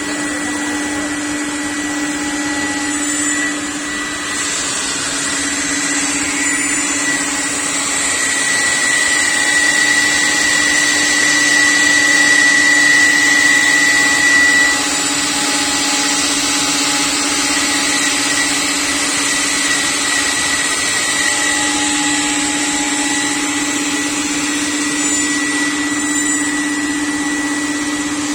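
CNC router cutting wardrobe panels: a steady high whine from the spindle over a hiss. It grows louder for several seconds in the middle, then drops back suddenly about halfway through.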